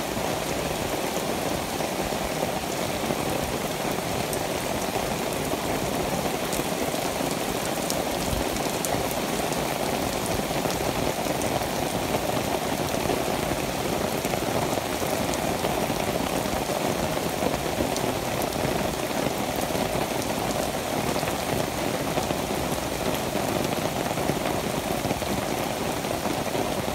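Steady rain falling on tree leaves and puddled ground, with the patter of scattered single drops.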